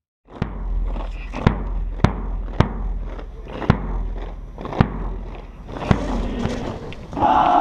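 Military marching drum struck in a steady marching beat of sharp strikes, roughly one to two a second, over a low rumble. A shouted voice starts near the end.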